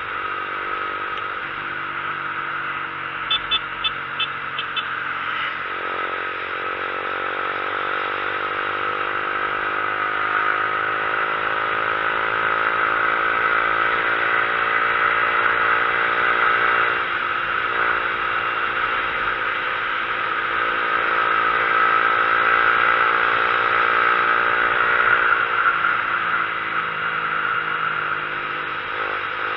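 Motorcycle engine running steadily under way, its pitch drifting slowly up and down with the road, with heavy wind noise over the microphone.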